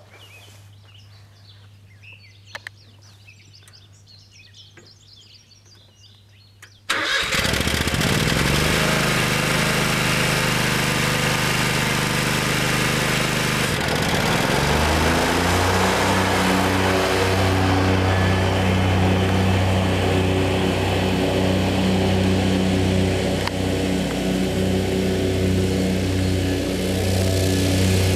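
Kawasaki FX1000V 37-horsepower V-twin engine on a Wright stand-on zero-turn mower starting up about seven seconds in and revving up, after a quiet start with a couple of faint clicks. About halfway through it is throttled up to a higher steady speed and keeps running there.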